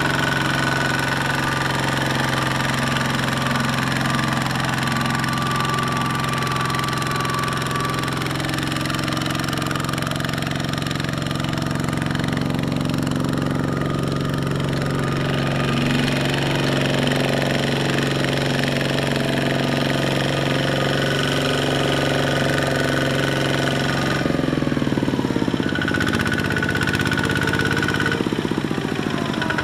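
Kubota ZT140 walking tractor's single-cylinder diesel engine running steadily under load as it pulls a trailer through mud. About twenty-four seconds in, the engine note drops, then steadies again near the end.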